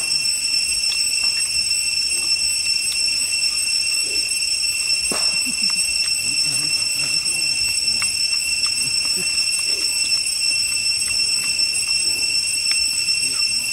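Steady, high-pitched drone of cicadas in the forest. Underneath it, soft chewing and a few small crunches as grilled eel and corn are eaten.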